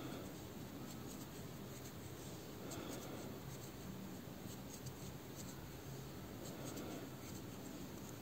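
Faint rustling and scratching of a metal crochet hook working cotton-blend yarn into single crochet stitches, with small scattered ticks.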